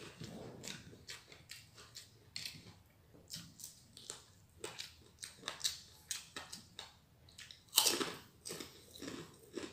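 Close-miked chewing of crisp fried food: irregular crunching bites and mouth smacks, with one louder crunch near the end.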